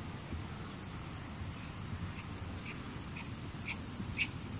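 Insects in the grass trilling: a steady, high-pitched chorus with an even, rapid pulse, over a low rumble.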